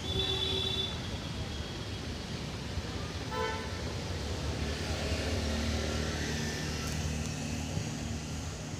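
Road traffic: a vehicle horn sounds briefly at the start and gives another short toot about three seconds in, then a motor vehicle's engine passes with a steady low hum.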